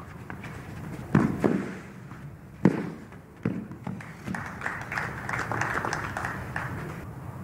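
Tennis rally: a few sharp hits of racket on ball about a second apart, then a few seconds of scattered applause from a small crowd.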